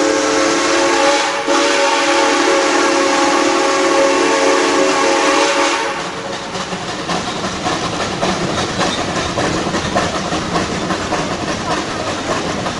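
Chime steam whistle of a Shay geared logging locomotive blowing one long blast of several steady tones at once, briefly broken about a second and a half in. It cuts off about six seconds in, leaving the rumble and clatter of the train's open cars running on the track.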